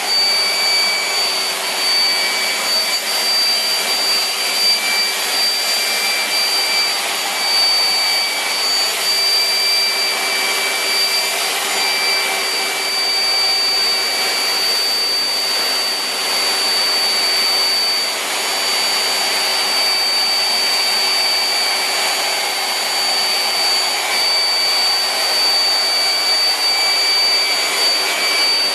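Vacuum cleaner running steadily: a constant rushing hiss with a high motor whine, no change in speed throughout.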